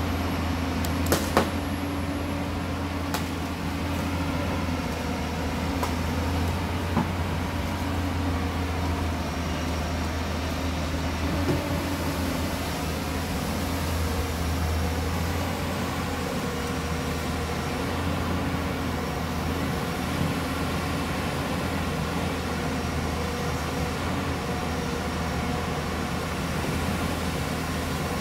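JCB tracked excavator's diesel engine running steadily as it digs at a dirt cut, with a few sharp knocks in the first few seconds.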